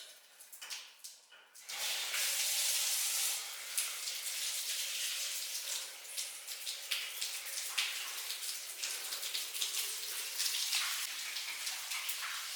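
Water running and splashing, starting suddenly about two seconds in and continuing as a steady hiss with scattered ticks and drips.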